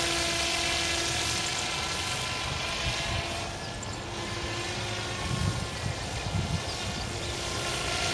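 Model Magnus-effect aircraft's motor and propeller running at a steady pitch overhead, growing fainter around the middle and then returning, with low wind rumble on the microphone toward the end.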